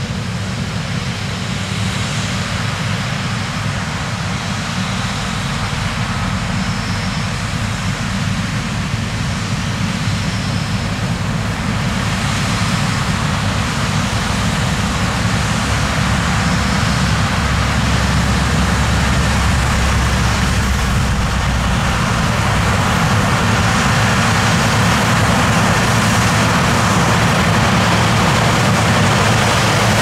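John Deere combine harvesting corn and a John Deere tractor pulling a grain cart alongside it, their diesel engines and machinery making a steady, loud drone that grows a little louder over the stretch.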